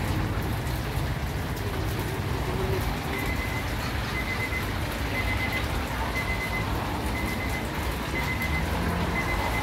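Battered chicken pieces sizzling in a commercial deep fryer's hot oil, a steady crackling hiss. From about three seconds in, a high electronic beep repeats roughly once a second.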